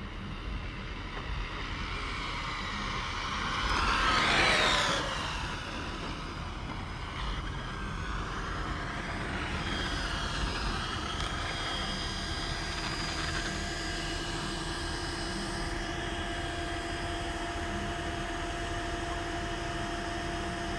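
Whine of a fast radio-controlled model's electric motor passing close, rising then falling in pitch about four seconds in, with a weaker pass near ten seconds. From about twelve seconds on there is a steady hum of several even tones.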